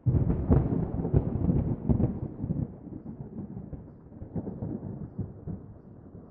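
Thunder sound effect: a sudden, loud thunderclap with sharp crackles that rolls on and fades into a lower rumble.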